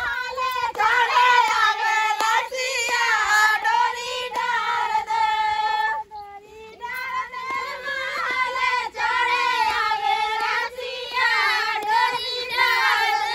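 Women singing a Bundeli wedding folk song in high voices, with hand claps; the singing breaks off briefly about six seconds in.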